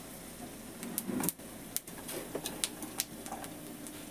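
Nigella seeds and dried red chillies spluttering in hot oil in a kadai: irregular sharp pops, a couple each second, over a faint sizzle.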